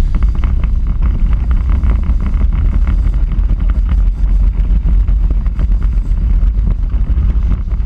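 Onboard sound of an electric Power Racing Series kart driving at speed: a loud, steady low rumble with fast rattling from the car and camera mount over the pavement, and wind on the microphone.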